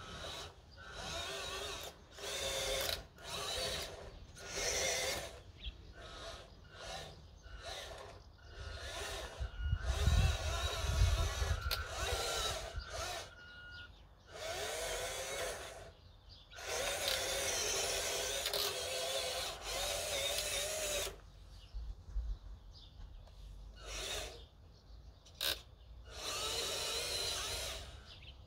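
Electric drive motor and gearbox of a radio-controlled model truck whining in repeated stop-start bursts as the throttle is worked. Some bursts are short blips and others are longer runs of several seconds. A low rumble comes in around ten seconds in.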